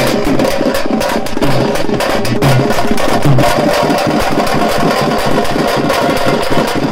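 Street drum band beating stick-struck frame drums in a fast, dense, driving rhythm.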